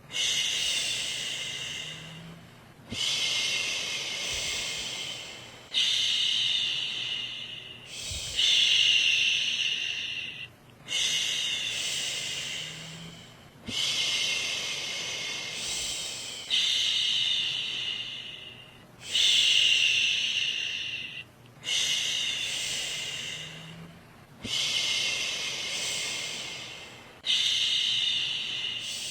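A woman's voice making long, steady "shhh" shushing sounds to soothe a baby to sleep. About eleven shushes come one after another, roughly one every two and a half seconds; each starts sharply, fades, and is followed by a brief pause for breath.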